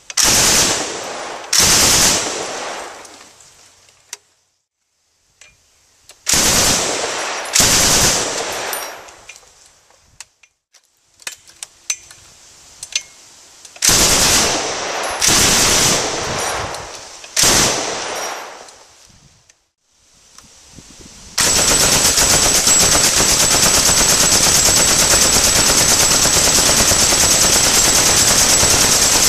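M60D belt-fed 7.62 mm NATO machine gun firing on full auto. It fires seven short bursts, each followed by an echo dying away. Then comes one long unbroken burst of about eight seconds near the end.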